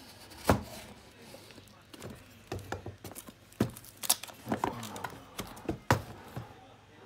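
Cardboard box being slit open with a long knife and turned over on a wooden workbench: the blade scrapes along the box and its packing tape, with several sharp knocks as the box is handled and set down.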